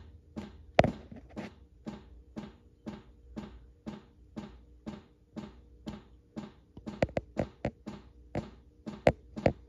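Polaris snowmobile electronic oil-injection pump clicking steadily about twice a second as it runs its priming cycle with the engine off, pushing oil through the lines to purge air. A few sharper, louder clicks come in near the end.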